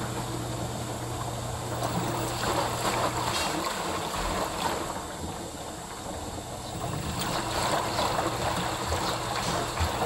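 Panasonic front-load washing machine running on a test cycle, with water rushing and sloshing inside it. A steady low hum stops about three seconds in.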